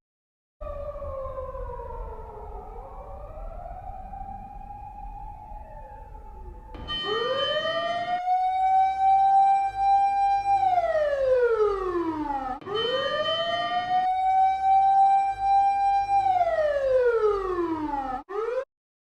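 Siren sound effect. For the first several seconds a quieter tone wavers up and down over a low rumble. About seven seconds in, a louder siren winds up, holds its pitch and winds down, twice, with abrupt cuts between the parts.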